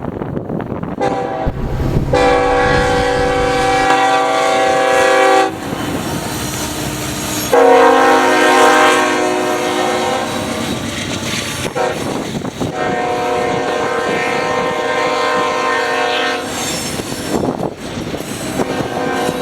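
Nathan K5HL five-chime air horn on a Union Pacific locomotive sounding a chord in long blasts, three of them a few seconds each, the second the loudest, with a fourth starting near the end. Heard over the steady noise of the passing train.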